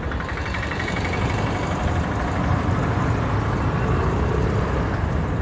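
Steady road traffic noise from motorcycles and cars passing on a city road.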